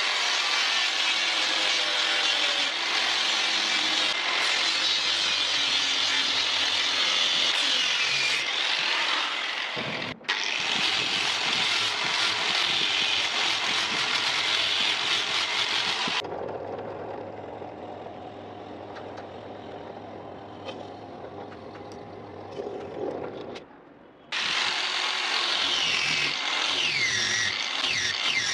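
A power tool's spinning sanding disc abrading the wooden handle scales of a meat cleaver: a loud, harsh hiss. About halfway through it drops to a quieter stretch where mostly the motor's low hum is heard, then the loud sanding starts again near the end.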